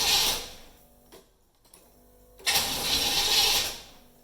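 1990 Chevy Camaro IROC-Z's V8 cranking over on the starter without firing, in two tries: one ending in the first half second and another of about a second starting two and a half seconds in. It turns over normally but does not catch, a crank-no-start.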